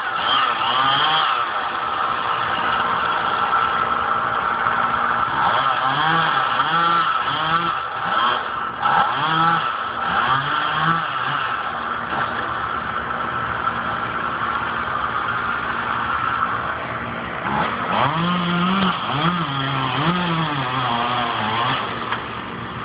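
Chainsaw running, revved up and down several times in quick succession about a third of the way in and again near the end, as when cutting into a limb.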